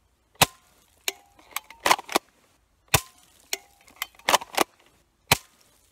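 Bug-A-Salt salt gun being worked: about ten sharp clicks and snaps, some in quick pairs, as it is pumped, its safety clicked and the trigger fired.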